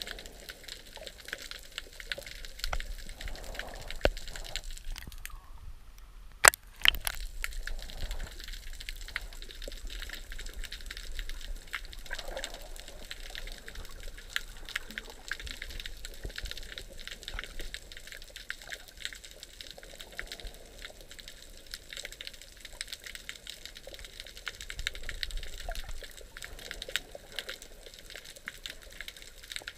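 Underwater ambience: a steady crackle of fine clicks over a muffled low rumble, with a sharp loud knock about six and a half seconds in and a smaller one just after.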